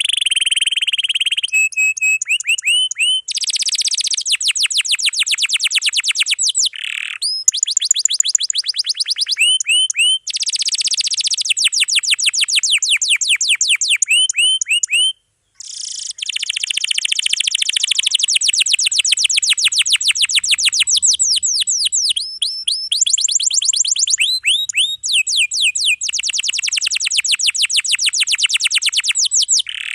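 Domestic canary singing continuously in long, fast rolls: runs of rapidly repeated rising notes and trills, changing phrase every few seconds. The song breaks off briefly about halfway.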